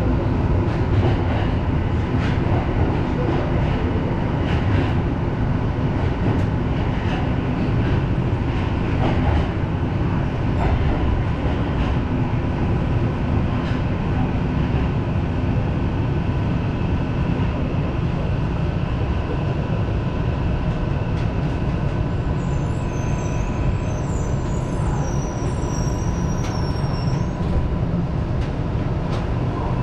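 Tokyo Metro Marunouchi Line train running, heard from on board: a steady rumble of wheels and running gear with a faint steady whine. About three-quarters of the way through, a high squeal sounds for several seconds, falling in pitch.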